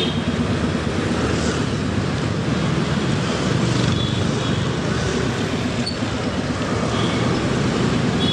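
Motorcycle engine running steadily with road noise while being ridden in traffic.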